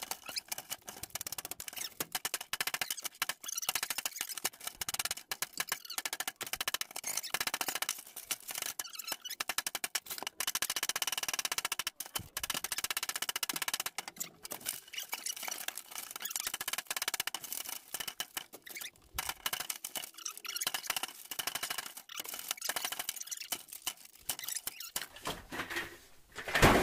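A laptop being pulled apart and broken up: a steady run of clicks, clacks and knocks of hard plastic and metal as keys are pried off the keyboard and the parts are struck and scraped with a metal rod.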